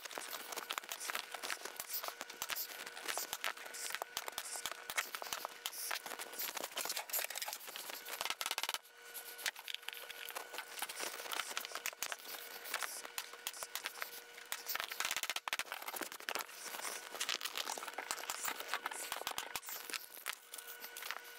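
Vinyl seat cover being handled and pulled over the plywood seat base, crinkling and rustling, with many small clicks and knocks of work on the seat. A faint steady hum runs underneath.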